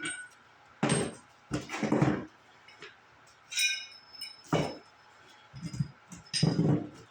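Metal wheel-hub kit parts being handled and set down: several knocks and clatters, with a ringing metallic clink about three and a half seconds in.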